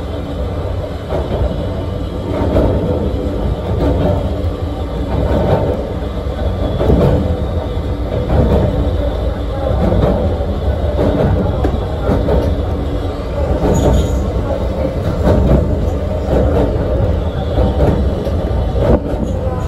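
Small narrow-gauge (762 mm) electric railcar of the Yokkaichi Asunarou Railway heard from the cab while running, with a steady rumble and hum and irregular clicks from the wheels on the track.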